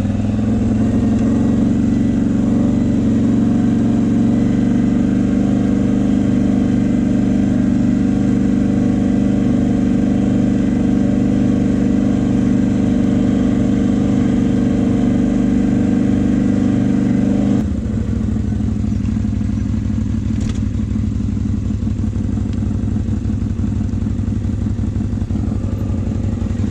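CFMoto X8 ATV engine running steadily, dropping abruptly to a lower, rougher note about eighteen seconds in.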